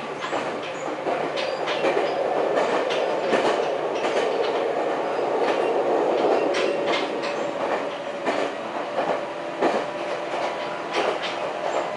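Interior of a moving electric commuter train: the steady rolling rumble of the wheels on the track, with irregular sharp clicks as the wheels cross rail joints.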